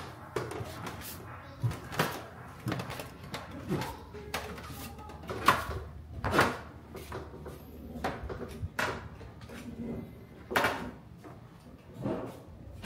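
Footsteps on old wooden stairs and plank floorboards: an irregular run of knocks underfoot, about one or two a second.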